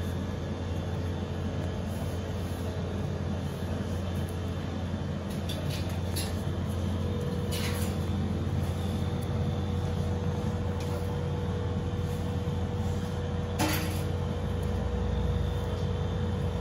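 A steady low rumble, with a faint steady whine above it. A few short scratchy taps break in, two around the middle and a sharper one near the end.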